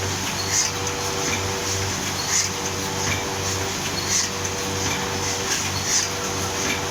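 Automatic wire-stitching machine for books running steadily, with a sharp clack about every second and three quarters as it stitches each book, and a lighter click halfway between.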